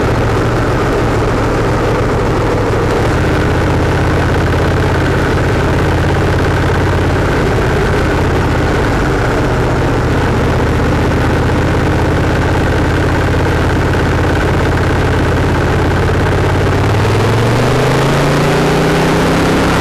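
Motorcycle engine running steadily at low speed in slow traffic; in the last few seconds its pitch rises as it accelerates.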